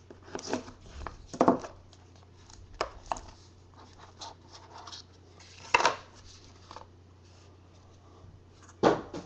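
A blade slitting the seal of a small trading-card box, then the box being handled and opened and the stack of cards slid out: scraping and rustling with a few sharp clicks and knocks, the loudest about a second and a half in, near the middle and near the end.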